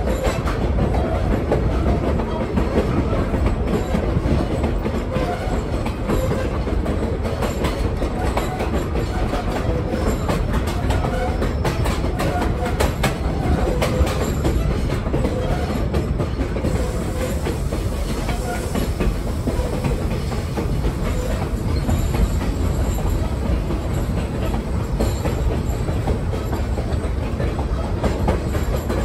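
Former Union Pacific caboose rolling along the track: a steady rumble and rattle of the car with its wheels clicking over the rails, the clicks thickest about twelve to sixteen seconds in.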